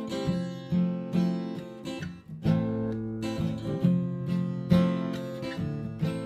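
Acoustic guitar strummed in an instrumental passage of the song, chords struck about every half second to second.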